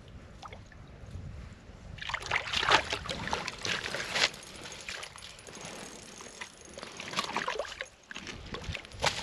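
A hooked rainbow trout splashing in the water of an ice-fishing hole as it is brought up and grabbed by hand, in irregular bursts, the longest from about two to four seconds in and shorter ones later.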